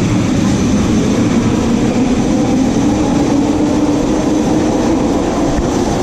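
Bombardier Innovia Metro 300 (Mark III) SkyTrain moving along the station platform, its linear induction motors giving a steady hum over the rolling noise of the train.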